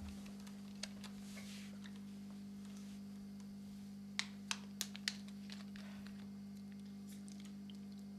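Steady electrical hum from the band's amplifier left on between songs, with four sharp taps a little past halfway, about a third of a second apart, and a few fainter ticks.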